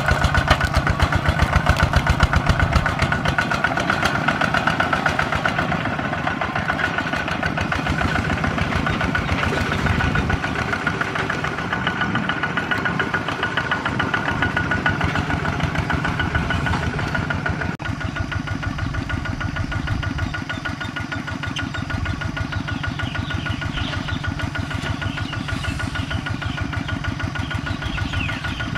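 Single-cylinder diesel engine of a Kubota walking tractor running steadily with rapid, even firing pulses while it pulls a disc plough through soil. The sound changes briefly about two-thirds of the way through.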